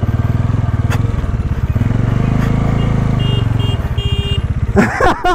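Motorcycle engine running close to the microphone, idling with light blips of the throttle. A short burst of a voice comes near the end.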